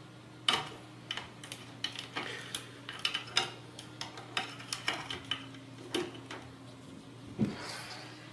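Irregular light clicks and clinks of small hard parts being handled, about two or three a second, over a faint steady low hum.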